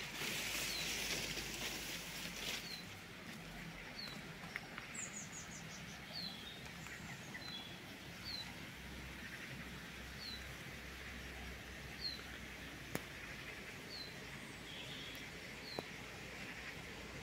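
A small songbird repeats a short, high, downward chirp every one to two seconds, and another bird gives a brief falling trill about five seconds in. A louder rustle of leaves brushing past fills the first two seconds.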